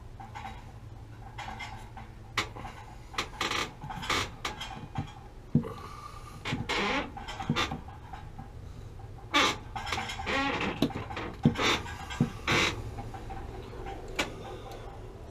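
Corrugated stainless steel flex supply lines being handled and bent at a water heater's top connections: irregular sharp metal clicks, clanks and short scrapes, over a steady low hum.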